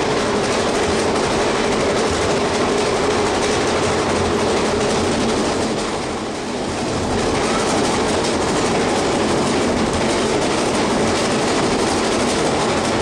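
Train running on the rails: a steady noise of moving cars and wheels on track, easing off briefly about six seconds in.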